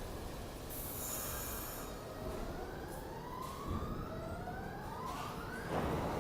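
New York City subway train pulling out of the station, its traction motors whining in two overlapping tones that rise steadily in pitch as it picks up speed, over a low rumble. A brief high hiss comes about a second in.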